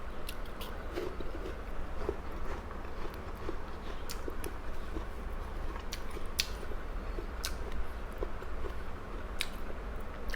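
A person chewing and biting food close to the microphone, with soft wet mouth sounds and a few sharper clicks, over a steady low hum.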